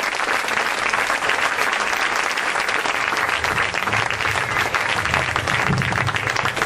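Crowd applauding steadily: many hands clapping at once.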